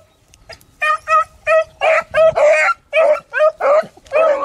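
Beagle baying in a steady run of short, pitched yelps, about two or three a second, starting about a second in. It is the cry of a hound trailing rabbit scent.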